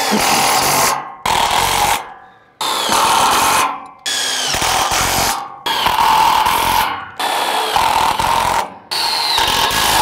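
Power drill driving self-drilling tek framing screws into a steel garage door header and angle bracket, in about seven short runs of a second or so each, with brief pauses between.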